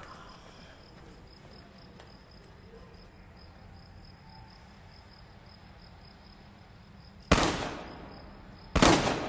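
Two gunshots about one and a half seconds apart, each with a long echoing tail: a gun being test-fired to show it will not burst.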